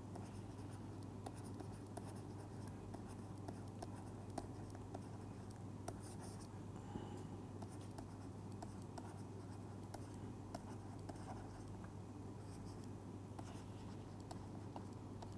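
Stylus writing on a tablet screen, with faint irregular taps and scratches of the pen tip as letters are written. A steady low hum runs underneath.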